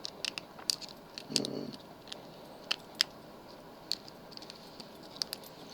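Lock pick and tension wrench working a pin tumbler lock: faint, sharp metal clicks and taps at irregular intervals as the pins are raked and set, with the lock opening shortly after.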